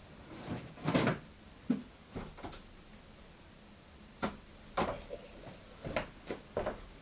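A person rummaging for a folder of papers: scattered knocks and clicks of drawers and cupboards being handled, with a brief rustle about a second in and a run of sharper clicks in the second half.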